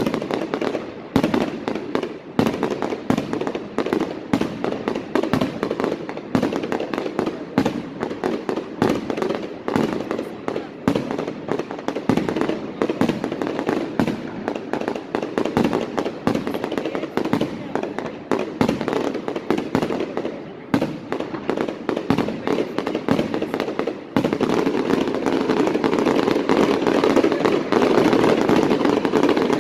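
Fireworks display: a rapid, dense barrage of bangs and crackles, many a second. About three-quarters of the way in it merges into a continuous loud rush.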